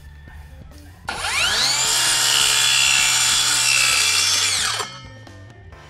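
Lotus 18 V cordless circular saw spinning up about a second in, cutting through a small piece of plywood, then winding down with a falling whine after about four seconds.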